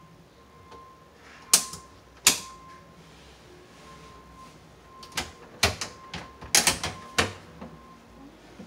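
Sharp clicks and snaps of hands and hardware working wiring and breakers inside an electrical breaker panel: two single clicks, then a quick run of clicks from about five to seven seconds in.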